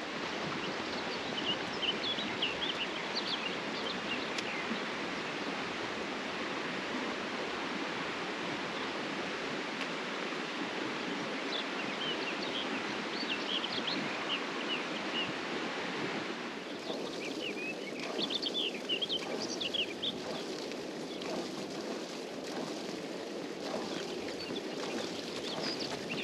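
Steady rush of flowing river water with small birds chirping over it in short bursts; the rush thins about two-thirds of the way through.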